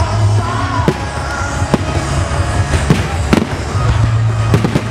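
Fireworks display bursting over loud music with a steady deep bass: several sharp bangs, with a quick cluster of three near the end.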